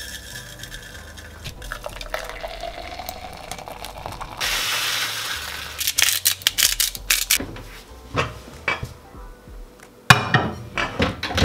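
Dry oats poured from a paper bag into a bowl, a rushing hiss for about a second and a half near the middle. Then the bowl clatters and clicks as it is handled, with a sharp knock near the end.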